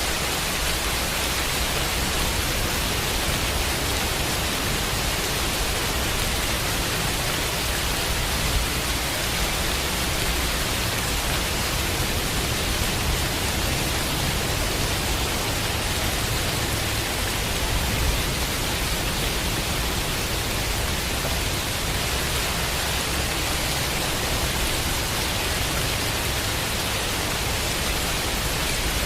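Steady rain, a dense even hiss with a low rumble underneath, blended with a constant layer of white noise; no distinct thunderclap stands out.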